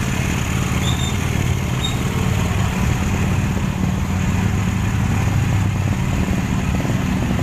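Motor vehicle engine running steadily while on the move, a low hum with a steady hiss over it.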